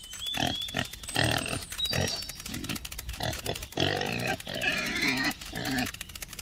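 Pigs grunting, a rapid, irregular string of short grunts one after another.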